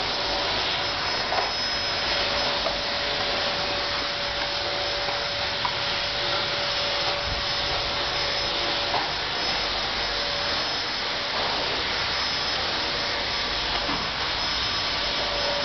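A steady, even hiss with a faint steady tone in it, unbroken throughout, and a few faint light taps here and there.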